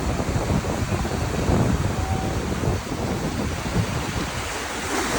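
Ocean surf washing, with wind buffeting the microphone.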